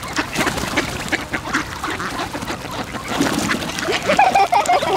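A large flock of mallards crowding for bread on the water, many birds quacking over one another in a dense, continuous din, with some splashing.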